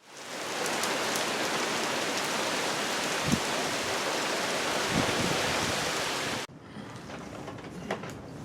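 Heavy hurricane rain and wind: a dense, steady hiss that fades in at the start. About six and a half seconds in it cuts suddenly to a quieter rain hiss with a few sharp ticks.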